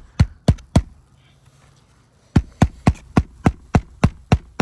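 Hand hammer driving a roofing nail through asphalt shingles: four quick blows, a short pause, then a run of about ten rapid blows.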